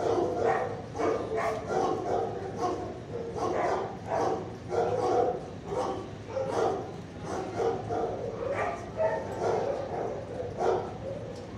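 Several shelter dogs barking at once in a kennel block, an unbroken chorus of overlapping barks about twice a second.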